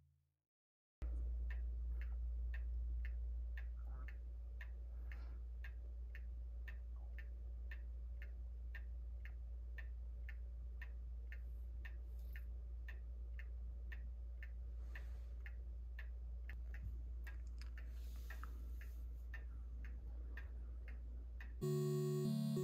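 Analogue clock ticking steadily, about two ticks a second, over a low steady hum. Background music starts near the end.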